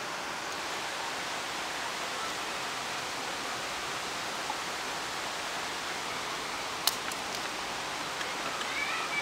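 Steady, even hiss with no engine note in it, broken by one sharp click about seven seconds in.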